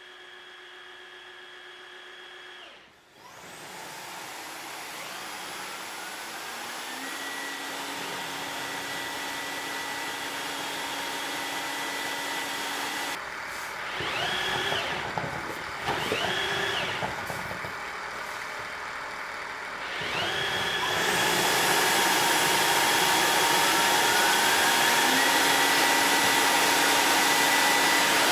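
Tineco Floor One S7 wet-dry vacuum mop running its self-cleaning cycle in the docking station, suction motor and roller brush working together. The motor starts a few seconds in with a rising whine and then runs steadily, with a few warbling surges about halfway through. It runs louder in the last third, where there is another rising whine.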